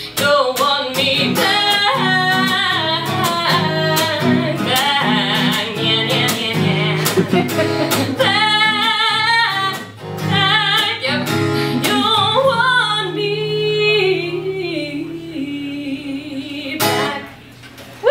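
A woman singing live to her own strummed acoustic guitar. The song ends about a second before the close.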